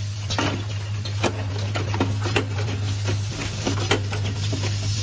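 Automated angle-valve assembly machine running: a steady low hum under irregular metallic clicks and clacks as its clamps and rotary table work.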